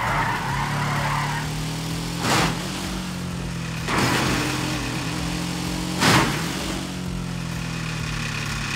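Motor vehicle engine running with a steady low drone that shifts slightly in pitch. Three loud short knocks come about two seconds apart.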